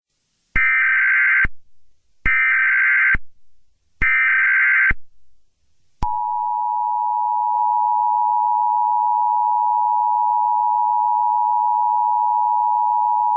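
Emergency Alert System tones: three short bursts of SAME header data, each a harsh buzzing warble about a second long, then the two-tone attention signal starting about six seconds in and holding steady.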